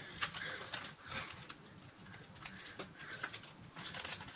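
Small kraft-paper envelope being handled and worked open by hand: soft paper rustling with scattered small clicks and crinkles.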